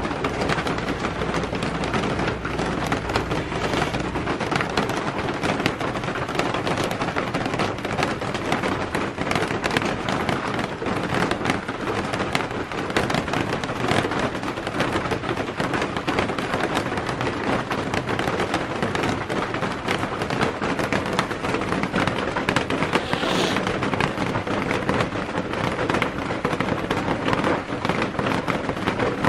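Rain pattering steadily on a corrugated plastic roof: a dense, even crackle of many small taps.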